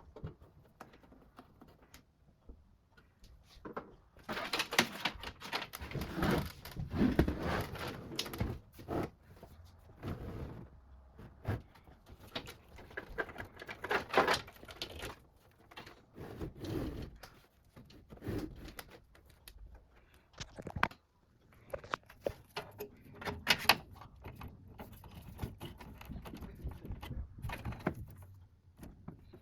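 Irregular clicks, knocks and rustling of computer hardware being handled and fitted by hand during PC assembly, with no steady tone.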